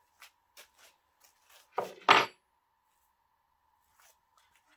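Metal parts or tools being handled and set down: a few light clicks and taps, then two sharp metallic clanks in quick succession about two seconds in.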